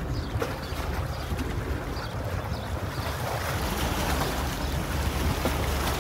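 Steady wind on the microphone with water sloshing, over a constant low rumble.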